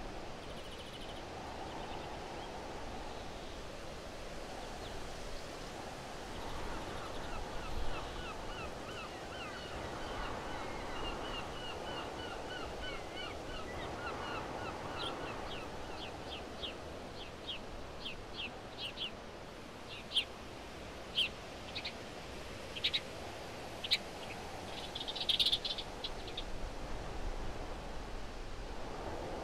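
Birds singing over a steady background hiss: a fast run of repeated chirps in the first half, then a series of louder, sharp single notes a second or so apart in the second half.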